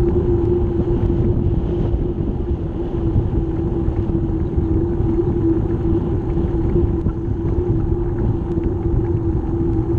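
Wind rumbling over the microphone of a camera on a moving bicycle, with a steady hum.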